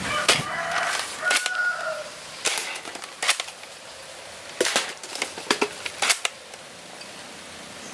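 Nerf Dual-Strike foam-dart blaster being primed and fired: a series of sharp plastic clacks and pops, several in quick succession past the middle.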